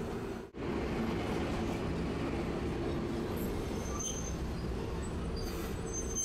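Tosaden streetcar running along its track: a steady rumble of wheels and motor, with a couple of brief high wheel squeals in the second half. The sound drops out for an instant about half a second in.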